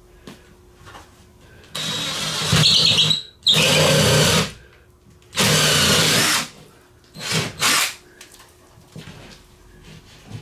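Cordless drill boring a hole into a wall, run in three long bursts and one short one.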